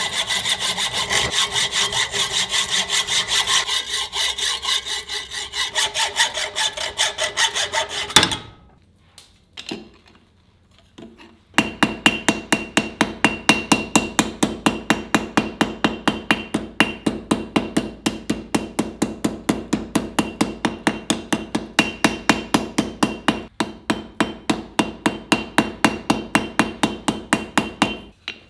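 Steel knife blank worked with hand-tool strokes, likely a file or hacksaw, at about three strokes a second. The strokes stop about eight seconds in, then start again about three seconds later, faster at about four a second, with the steel ringing under each stroke.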